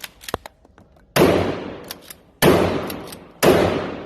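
Radical P3 pump-action shotgun fired three times, each shot about a second apart, each with a long echoing tail. Light clicks come between the shots.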